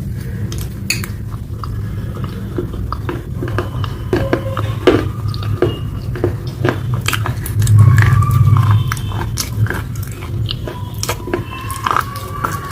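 Close-miked chewing and eating of pasta: many wet smacks and mouth clicks over a steady low rumble.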